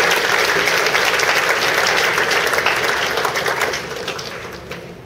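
Audience applauding, dying away about four seconds in, with a few last scattered claps near the end.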